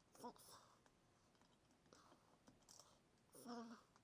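Near silence: faint room tone with a few soft clicks, and two brief soft pitched sounds, one just after the start and one near the end.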